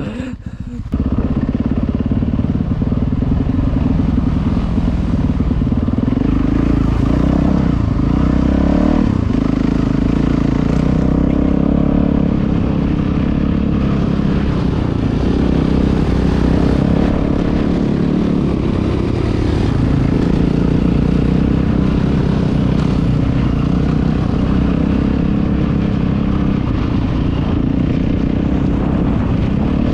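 Four-stroke dirt bike engine running steadily, starting about a second in and staying at a fairly even pitch throughout.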